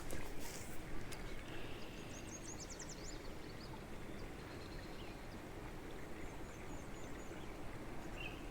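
Quiet outdoor ambience at a pond: a low steady background hiss, with a small bird's short, high, rapid trill about two seconds in and a few faint chirps near the end. A couple of light clicks from handling come in the first second.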